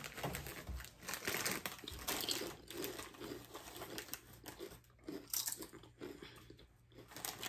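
Plastic crisp packet crinkling and rustling in irregular bursts as it is handled and crisps are taken from it.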